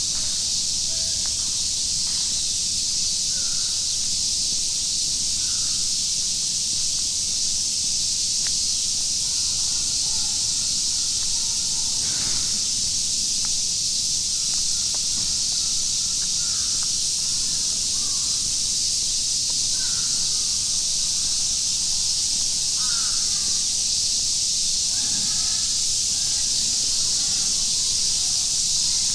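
Steady hiss of falling rain, with a few faint, short calls scattered in the background.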